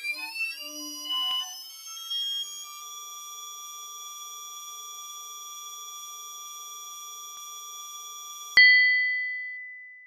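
Synthesised intro sound effects: a rising electronic glide that levels off into a steady high tone with a few faint blips. About eight and a half seconds in comes a sudden loud hit, ringing out into a high ding that fades away.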